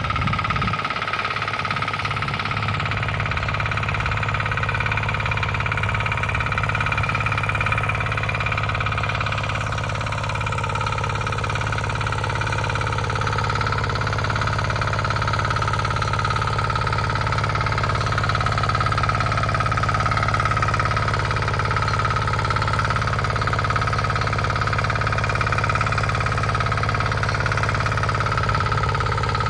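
Bolat Atom motor hoe (walk-behind power tiller) engine running steadily, with a constant low hum and a steady higher whine over it.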